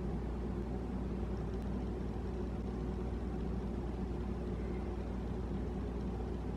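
Steady low hum with an even background noise, like a running household appliance or fan motor, unchanging throughout.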